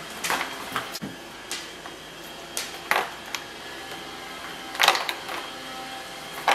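Ice cubes being popped out of a flexible ice mold and set down: an irregular scatter of clicks and clinks, the loudest cluster about five seconds in.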